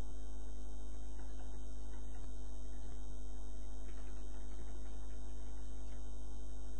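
Steady, buzzy electrical mains hum picked up by the recording, with a few faint clicks over it.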